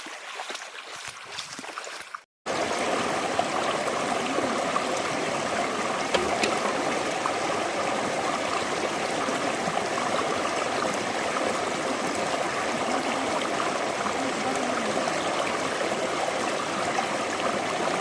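Rushing water: quieter trickling with small splashes for about two seconds, then after a short break a louder, steady rush of water that holds without change.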